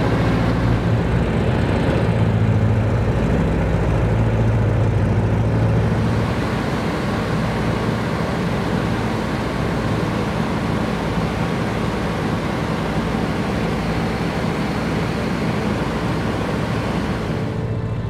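Junkers Ju 52's three BMW 132 nine-cylinder radial engines droning steadily in cruise, heard inside the aircraft as a low hum over rushing airflow. The level drops slightly about six seconds in.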